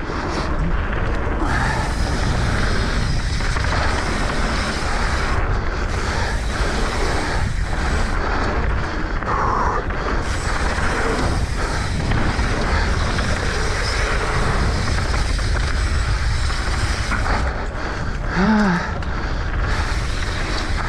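Steady wind rush buffeting an action camera's microphone, mixed with the tyre roll and rattle of a mountain bike riding a dirt trail at speed.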